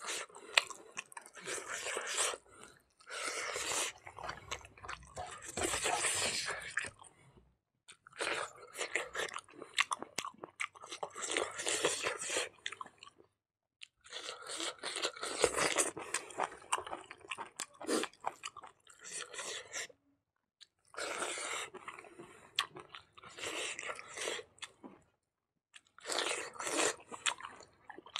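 Close-miked chewing and crunching as a person eats pig nose and rice by hand. It comes in stretches of several seconds broken by short pauses between mouthfuls.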